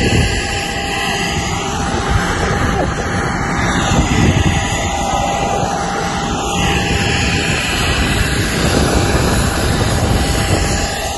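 Aircraft turbine engines running: loud, steady engine noise with a steady high whine over a low rumble.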